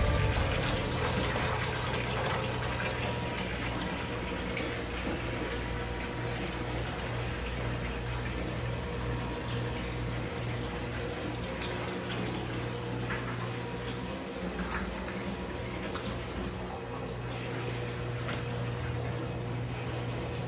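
Water running steadily from a tap into a milk-house sink, with a steady low hum underneath.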